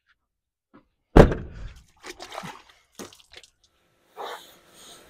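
A Ford Ranger pickup's door slammed shut about a second in, one heavy thud, followed by a few lighter knocks. A brief hiss comes near the end.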